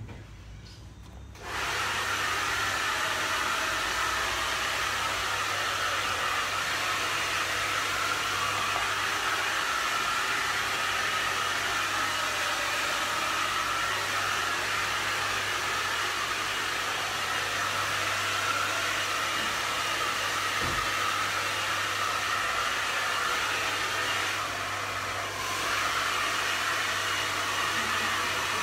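Hand-held hair dryer switched on about a second in and then running steadily, its airflow dipping briefly a few seconds before the end.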